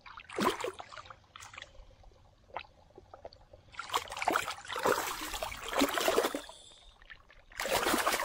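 Shallow, muddy pond water splashing and sloshing around a large kohaku koi as it is grabbed and held by hand. There is a short splash about half a second in, a longer stretch of splashing from about four seconds, and another burst near the end, with quieter sloshing between.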